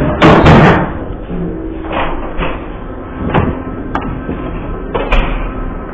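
Handling noise of a phone held against clothing: a loud rustle about a quarter second in, then several sharp knocks and thuds, over a steady low hum.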